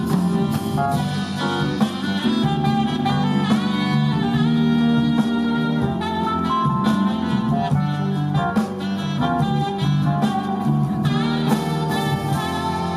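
Live jazz band playing an instrumental passage, with a saxophone-like lead line over bass and a beat of short, sharp strikes.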